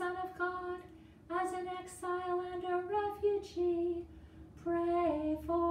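A woman's solo voice chanting a prayer unaccompanied, on a few held notes, in phrases with short pauses for breath between them.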